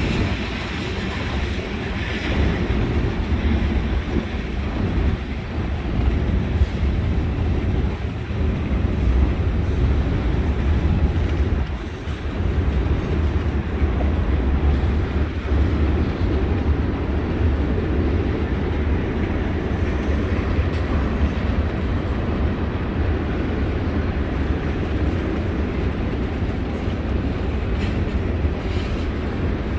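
Freight train cars rolling past, a steady rumble of steel wheels on the rails. A faint high wheel squeal fades out in the first few seconds.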